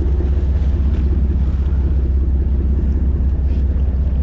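Fishing boat's engine running with a steady low rumble, with wind buffeting the microphone.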